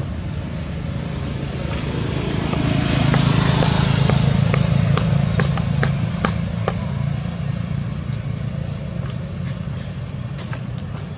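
A motor vehicle passes on the road, its engine and road noise swelling for a few seconds and then fading away, with scattered sharp clicks while it is loudest.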